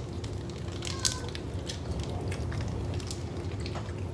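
Scattered crackling clicks from a snack being bitten and handled close to the microphone, over a low steady hum.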